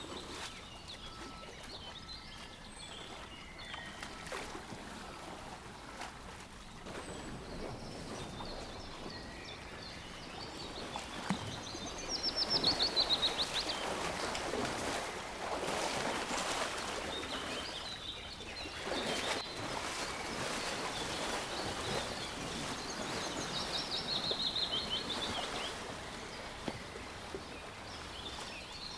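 Songbirds calling against a steady outdoor background hiss, with small chirps throughout. Twice, once near the middle and again near the end, a bird sings a fast trill of rapid notes that falls in pitch.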